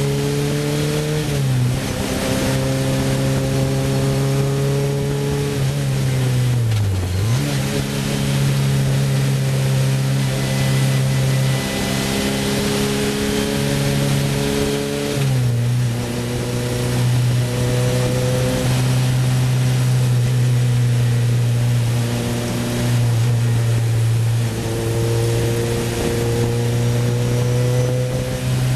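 Sports 2000 racing car engine heard on board, revving hard at racing speed with its pitch climbing steadily. The pitch drops sharply at gearchanges about a second in and about fifteen seconds in, dips and climbs again around seven seconds in, and dips once more near twenty-four seconds, over a steady rush of wind.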